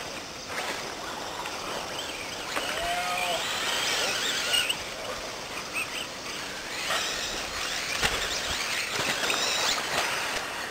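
Electric 1/10-scale R/C cars racing on a dirt track, their motors whining up and down with the throttle in repeated short bursts.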